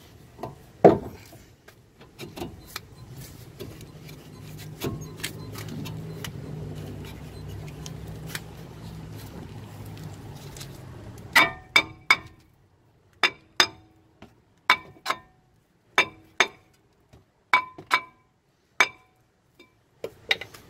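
Old cross-drilled front brake rotor on a Kia Sedona being worked loose from the wheel hub: a knock about a second in, a low rumble through the first half, then from about halfway a string of sharp metallic clanks, one or two a second, each ringing briefly.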